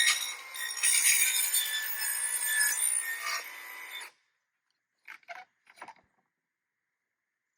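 Harsh rasping, scraping sound of a hand tool working against hard material, with a shrill ringing edge; it cuts off abruptly about four seconds in. A few faint clicks follow about a second later.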